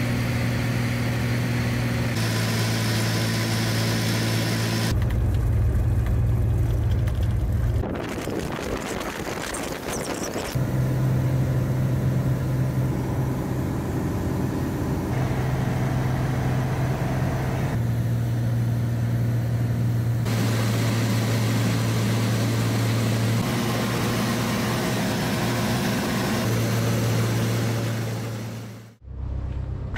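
Small airplane's engine and propeller droning steadily, heard from inside the cabin in flight. The drone changes abruptly every few seconds as one clip cuts to the next, and drops out briefly near the end.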